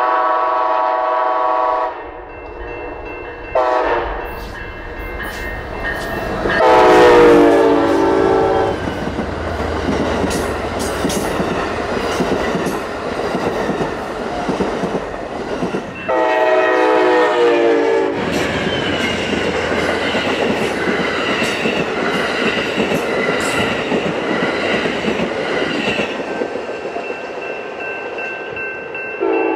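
Amtrak Siemens ALC-42 Charger locomotive sounding its air horn in several blasts as the train approaches, the third and longest the loudest. The passenger train then rolls past close by, its wheels rumbling and clicking over the rail.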